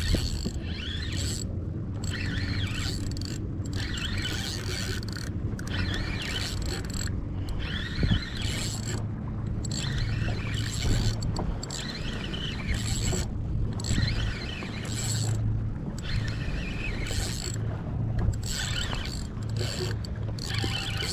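Spinning reel being cranked, its gears whirring as line is wound in against a hooked salmon. The winding comes in spells of a second or two with short breaks between them.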